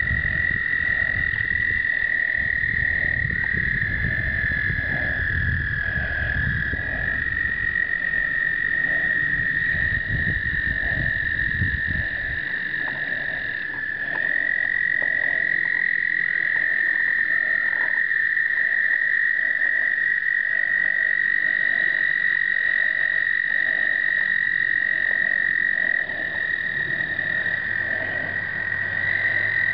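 Breeding chorus of American toads: several long, steady trills at slightly different pitches overlap continuously, one taking over from another as they start and stop. A fainter, lower pulsing sound repeats about twice a second beneath them.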